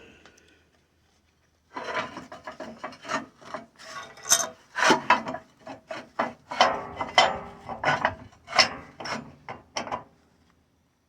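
Irregular scraping and rubbing strokes, as of steel parts being worked or dragged by hand, starting about two seconds in and stopping near the end.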